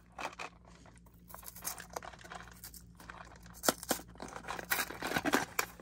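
Small cardboard LEGO Minifigures box being opened by hand: scattered light clicks, scrapes and crinkles as the end flap is pried up and pulled open, with a few sharper snaps in the second half.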